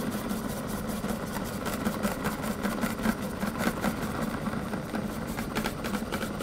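Yamamoto Denki MICHIBA KITCHEN PRODUCT food processor running with its julienne blade: a steady motor hum under a dense rattle of cutting as a daikon pushed down the feed chute is shredded into thin strips.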